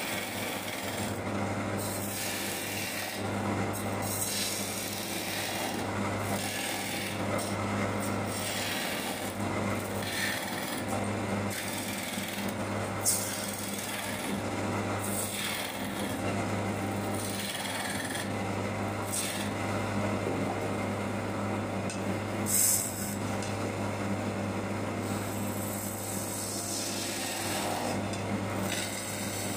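Chisel cutting a spinning wooden workpiece on a wood lathe: an uneven scraping that swells and fades with each pass of the tool, over the lathe's steady low motor hum. Two brief sharper scrapes stand out, one about halfway through and one later.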